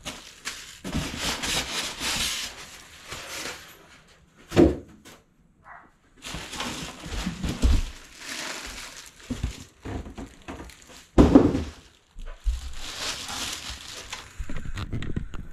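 Packaging being handled: a plastic bag and styrofoam packing rustling and crinkling in irregular spells, with two heavier thumps about four and a half seconds in and about eleven seconds in.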